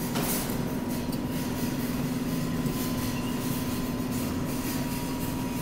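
Crane claw machine running with a steady mechanical hum and a constant low tone, as its claw goes through a grab.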